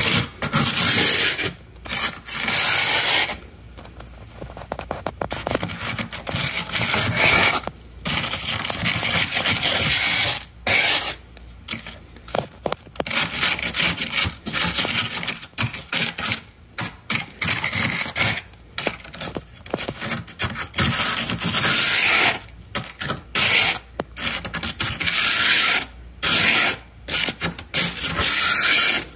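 A plastic scraper scraping thick, fluffy humidifier-grown frost off a deep freezer's wall in repeated rasping strokes, each half a second to two seconds long, with short pauses between.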